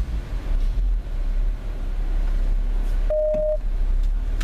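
Low, steady rumble of a car heard from inside the cabin, with a single short electronic beep about three seconds in.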